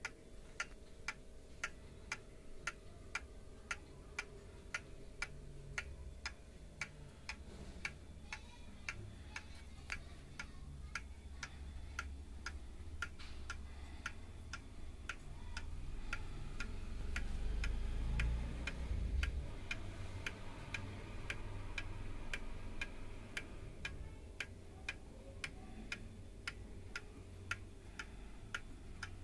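Seiko 30-day wind pendulum wall clock ticking steadily, its escapement clicking about twice a second in an even tick-tock. A low rumble swells and fades partway through.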